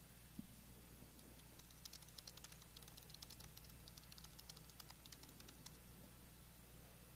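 Faint keyboard typing: a few seconds of quick, irregular clicks starting about two seconds in, over a steady low hum near silence. There is a single soft low thump just after the start.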